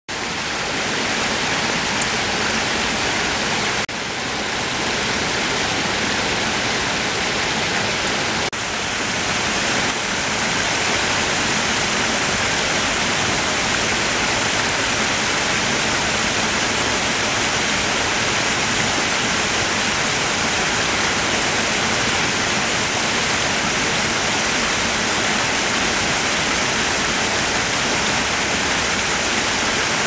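Small waterfall: water rushing and splashing over rock in a steady hiss, dipping briefly twice in the first nine seconds.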